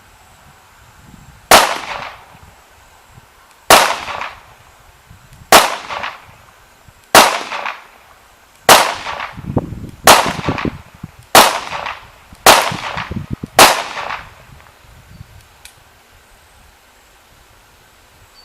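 Glock 19 9mm pistol fired nine times in slow aimed fire, the shots about one and a half to two seconds apart at first and coming a little faster toward the end, each crack followed by a short echo.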